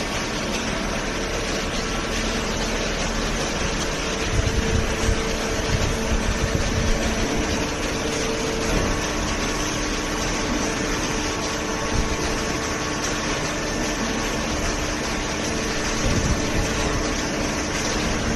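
Hydraulic baler's motor and pump running with a steady hum, its pitch shifting lower about halfway through, with a few irregular knocks a few seconds in and near the end.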